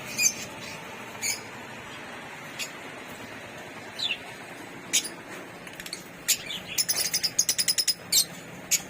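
African lovebirds chirping in an aviary: scattered shrill single chirps, then a quick run of chirps, several a second, in the last few seconds.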